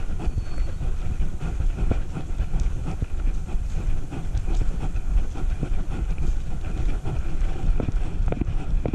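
Steady rumble and rattle of a camera strapped to a moving dog's back, jolting with its strides, with scattered clicks and knocks through it.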